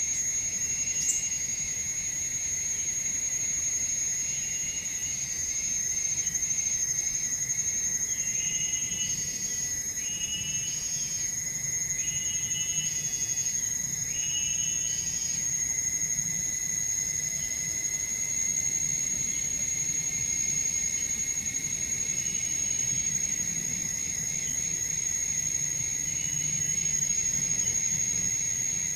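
Insects droning steadily in a high, unbroken tone, with a second lower drone beneath it. A few short bursts of chirping calls come about a third of the way in.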